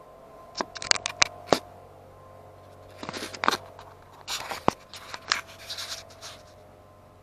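Handling noise as a small camera is gripped and moved. A run of sharp clicks and knocks comes in the first second and a half, then two bouts of scraping and rubbing, with a single hard knock about four and a half seconds in.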